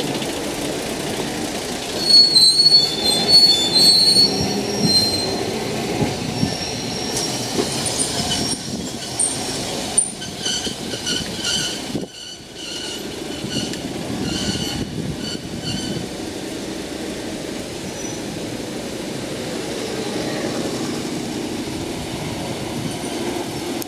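Nagasaki Electric Tramway 300-class streetcar's steel wheels squealing on curved rail as it turns through a street junction, in high thin squeals a couple of seconds in and again near the middle, over steady street traffic. A run of evenly repeated beeps follows partway through.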